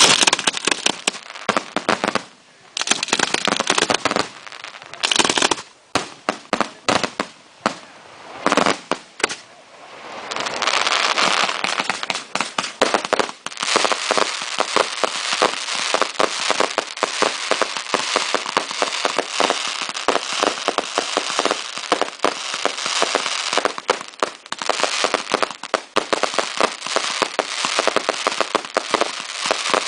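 Fireworks finale going off: clusters of sharp bangs and crackling with short gaps between them, then from about ten seconds in a dense, unbroken crackle of many rapid reports.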